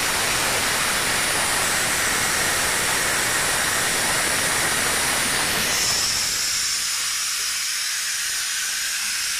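Steady loud hissing rush around a chiller; about six seconds in, the lower rumble drops away and leaves a thinner, higher hiss.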